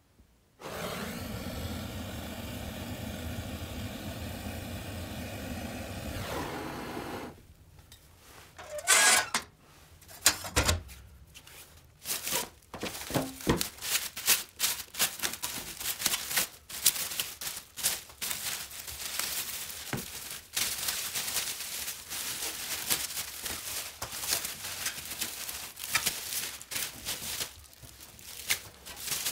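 A steady droning noise for about the first seven seconds, then clear plastic stretch wrap crinkling, crackling and tearing as it is pulled off a painted metal moped frame, with a couple of louder cracks around nine and ten seconds in.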